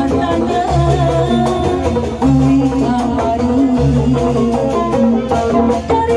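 Sundanese kuda renggong music playing: a melody over a repeating bass line, with regular drum strokes.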